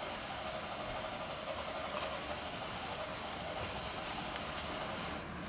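A motor vehicle engine running steadily.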